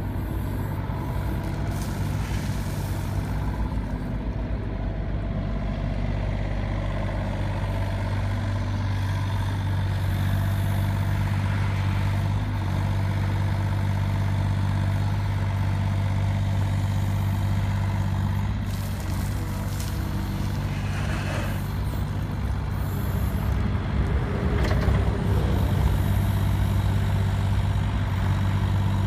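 Hitachi mini excavator's diesel engine running steadily with an even low hum while the arm and bucket are worked. A few brief knocks or scrapes come through in the second half.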